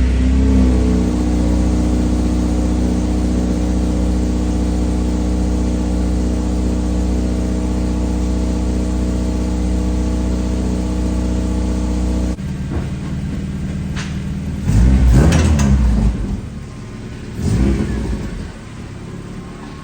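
2006 Acura RSX Type S's 2.0-litre K-series four-cylinder, now breathing through a Skunk2 Alpha header and Invidia N1 exhaust, running at a steady cold-start idle. About twelve seconds in, the sound drops abruptly, and two short revs follow. The exhaust has leaks, which the owner calls "hella exhaust leaks".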